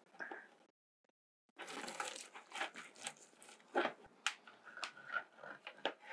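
Plastic bucket crackling and creaking in a run of irregular clicks and crunches as holes are melted through its wall with a heated wire rod and the bucket is turned in the hands. The sound cuts out for under a second about a second in.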